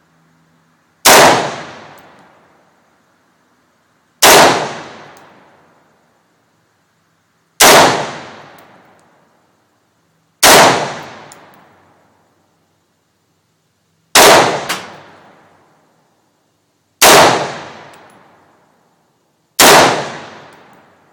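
Smith & Wesson AR-15 rifle firing Russian .223 rounds semi-automatically, seven loud single shots about three seconds apart. Each crack rings out in a long fading echo. One shot is followed half a second later by a second, weaker crack.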